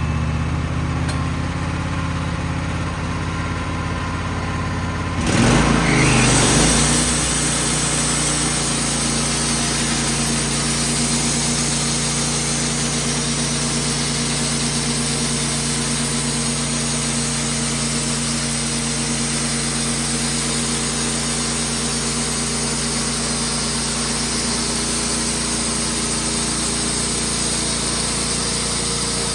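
Wood-Mizer LT15 band sawmill: the gas engine idles, then about five seconds in it surges up to a higher, steady speed as the band blade engages. The blade then saws steadily through a maple log, with a constant hiss over the engine.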